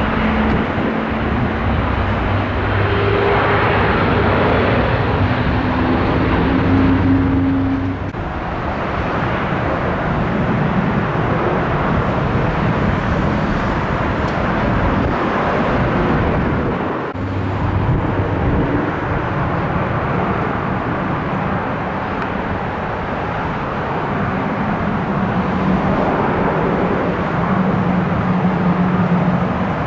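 Steady jet and ground-vehicle noise on an airport apron, with a low engine hum underneath. The sound shifts abruptly about 8 and 17 seconds in.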